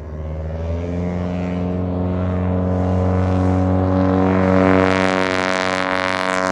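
A Cessna 170B light airplane's engine and propeller droning at a steady pitch, growing steadily louder as the aircraft comes close.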